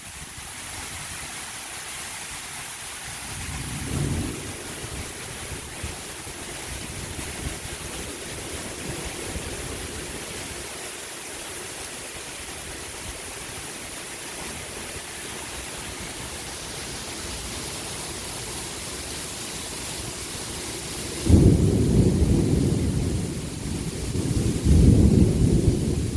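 Steady rain falling in a thunderstorm, with a short low rumble about four seconds in. Near the end come two loud, low rumbles of thunder.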